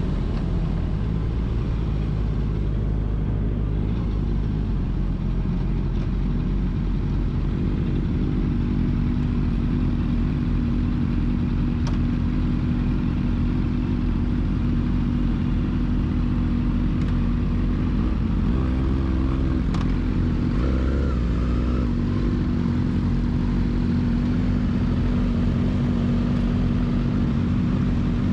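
Motorcycle engine running at a steady cruising speed over a heavy low rumble, its note holding one pitch, with a brief shift in pitch about twenty seconds in.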